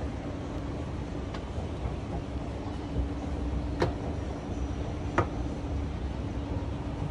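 City street background: a steady low rumble of traffic with a constant hum, broken by three sharp clicks.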